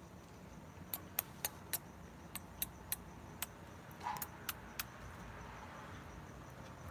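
A series of light, sharp clicks: about a dozen at uneven spacing, starting about a second in and stopping a little before five seconds.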